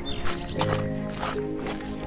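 Background music with held notes and a few short percussive strikes.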